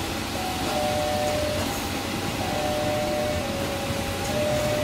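KRL electric commuter train running slowly past, with track noise and a steady wheel squeal that shifts between two or three pitches.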